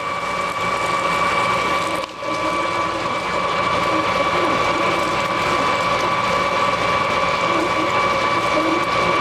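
Metalworking machine tool running steadily under power with a high, even whine, briefly dipping about two seconds in.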